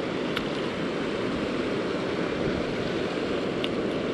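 Steady rushing of water pouring over a spillway, with a faint tick or two.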